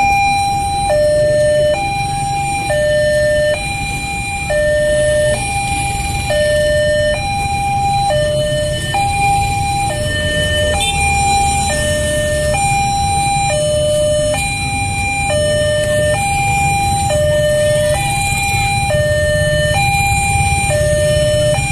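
Railway level-crossing warning alarm sounding its two-tone electronic signal, a higher and a lower tone alternating evenly about once a second without a break. It is the warning that a train is approaching and the barrier is down.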